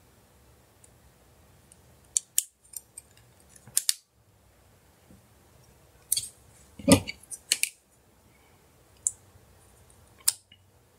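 Sharp clicks and taps of plastic phone parts being handled and fitted together on an LG V20, in scattered clusters, with one heavier knock about seven seconds in.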